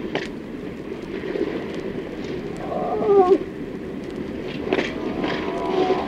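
A herd of zebu cattle moving through a corral: hooves shuffle and knock, one animal gives a short, low moo about three seconds in, and a higher call comes near the end.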